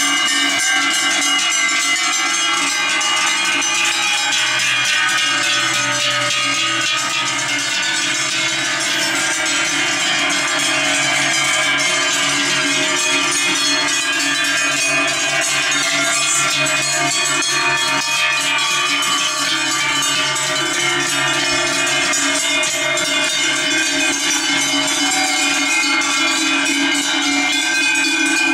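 Many large cowbells worn by a herd of walking cows, clanging continuously in a dense, overlapping jangle.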